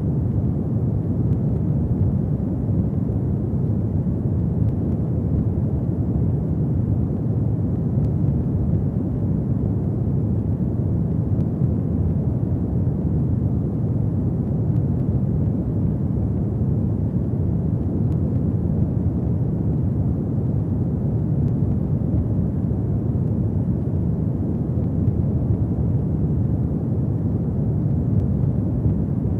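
Wood fire burning in a fireplace: a steady low roar of flames, with a few faint crackles.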